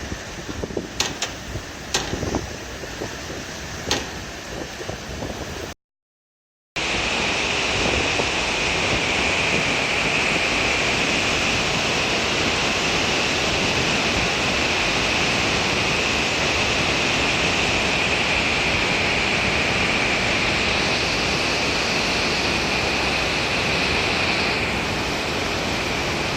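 Heavy typhoon rain and wind: a steady, loud rush of water, with a few sharp taps in the first seconds. It cuts out for about a second near six seconds in, then comes back as an even louder, steadier rush.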